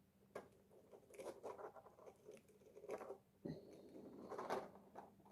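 Faint clicks and scratching of small 3D-printed plastic scales being handled and pressed together, over a low steady hum.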